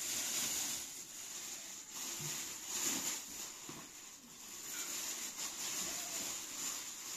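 Water pouring in a thin stream from a jug into a bowl, mixed with the crinkling of a thin plastic bag being handled, in uneven swells.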